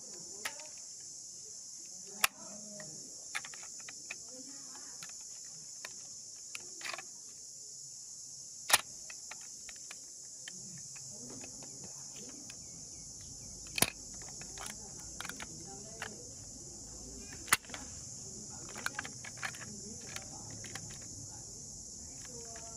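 A steady high-pitched chorus of crickets, with sharp clicks and knocks scattered through it, a few of them much louder than the rest.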